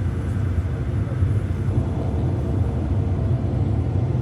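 Combine harvester running in the field, a steady low drone.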